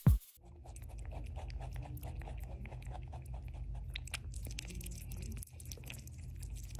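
A furry pet chewing food right up against the microphone: steady crunching, a few bites a second, over a low rumble.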